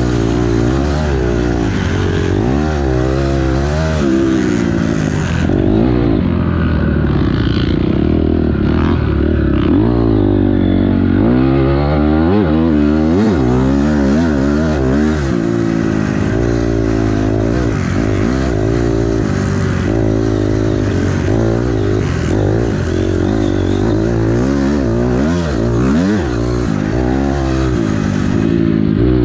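2006 Honda CRF250R dirt bike's single-cylinder four-stroke engine, heard up close from on board, revving up and down over and over as the rider works the throttle and gears around a motocross track.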